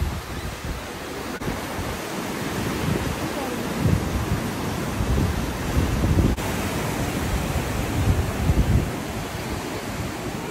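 Ocean surf breaking and washing below, a steady hiss, with gusts of wind rumbling on the microphone several times.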